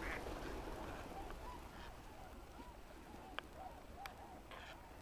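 A large flock of swans and ducks on a lake calling, many short overlapping calls at once, faint and distant. Two light clicks sound about three and four seconds in.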